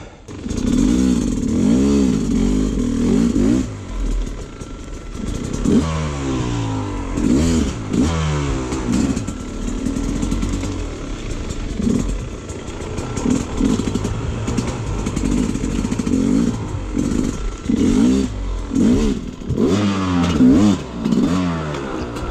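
Enduro motorcycle engine being ridden off-road, its revs rising and falling over and over as the throttle is worked, with scattered knocks and clattering from the bike.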